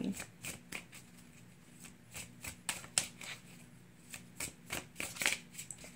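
A tarot deck being shuffled hand to hand in an overhand shuffle: an irregular run of soft, quick card slaps and flicks, coming in small clusters.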